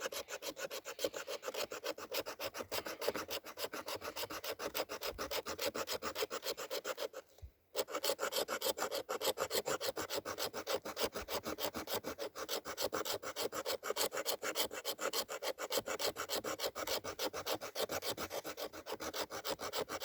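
The sharp back of a Leatherman Supertool's saw blade scraping a stick of wood in quick repeated strokes, about four a second, shaving off fine tinder scrapings. The scraping breaks off briefly about a third of the way through, then carries on.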